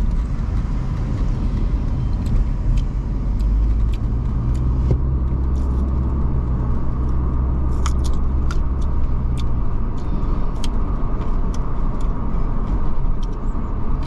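Car cabin noise while driving: a steady low road and engine rumble, with scattered light clicks and rattles.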